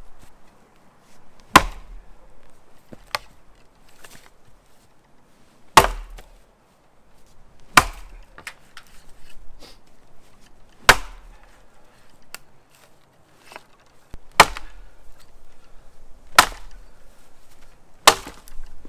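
Axe chopping into wood: seven sharp, hard strikes at uneven intervals of about two to three seconds, with fainter knocks in between.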